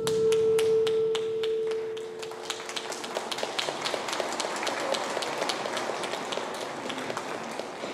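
Audience applauding with many separate hand claps in an ice rink, while the last held note of the skating program's music rings on and dies away about three seconds in.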